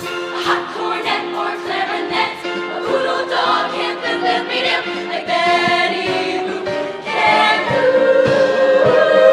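Show choir singing in harmony, growing louder into a held chord about seven seconds in.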